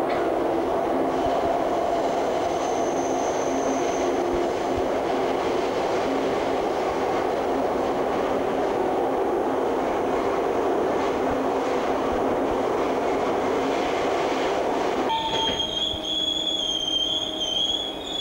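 Singapore MRT subway train running, heard from inside the car: a steady, even rush and rumble. About fifteen seconds in the sound changes abruptly to a high, wavering squeal as the train draws into a station.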